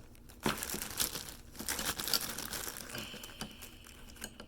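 Plastic bag crinkling and rustling as hands work a Ford ignition lock cylinder inside it, with several sharp clicks; the loudest click comes about half a second in.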